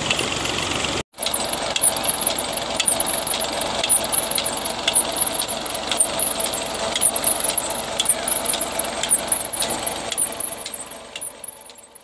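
Tractor engine running steadily, driving the new tubewell's pump through its PTO shaft, with a steady rattle from the drive. A high chirp repeats about twice a second, and the sound fades out near the end.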